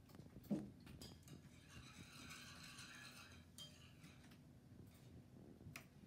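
Near silence: quiet room tone, with one soft low thump about half a second in and a few faint clicks.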